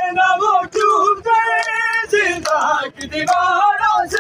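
Men chanting a noha, a Shia mourning elegy, with held, wavering notes, over rhythmic chest-beating (matam) slaps about once a second.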